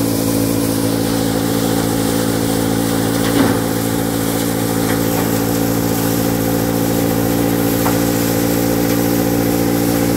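Auto-rickshaw-mounted threshing machine running steadily while threshing grain: a constant engine and drum hum. A brief knock about three and a half seconds in.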